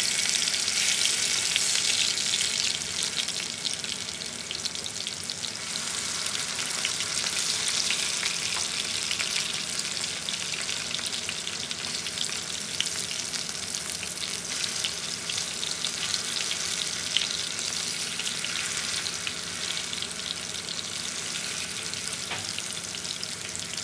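Skinless chicken longganisa sizzling in shallow oil in a frying pan, a steady hiss with fine crackling of spattering oil, a little louder in the first couple of seconds.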